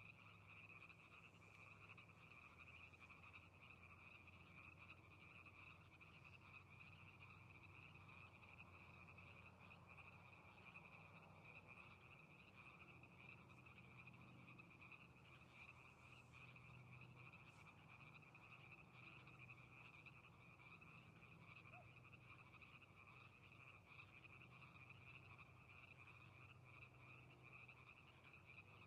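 A chorus of many frogs calling together, faint and continuous, with the calls massed into one unbroken high chorus.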